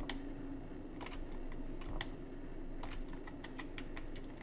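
Computer keyboard and mouse clicking: scattered single clicks, then a quick run of about half a dozen near the end.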